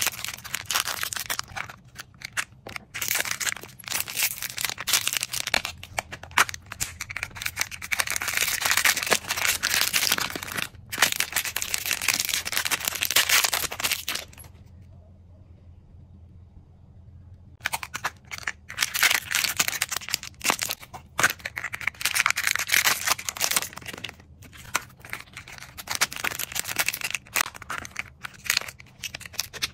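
Clear plastic wrappers crinkling and tearing in quick irregular spurts as small toy figures are unwrapped by hand, with a pause of about three seconds midway.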